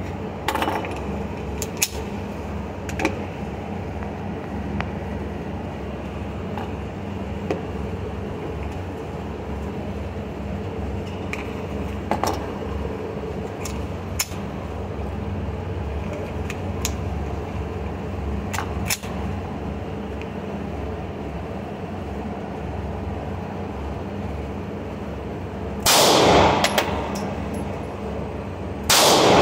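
Two loud 9mm pistol shots near the end, about three seconds apart, each ringing out in the range's reverberation. Before them, a steady background hum with scattered fainter sharp cracks.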